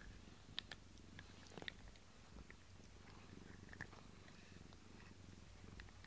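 Domestic cat purring softly as it rubs its face against a rubber-bristled grooming brush, with a few faint clicks of the bristles and fur.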